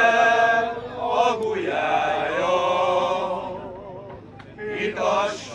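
Men's choir singing a cappella, holding long notes in sung phrases, with short breaks between phrases about a second in and again about four seconds in.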